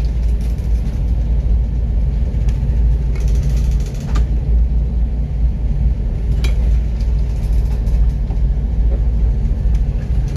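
A loud, steady low rumble with a few sharp clanks, about two, four and six and a half seconds in.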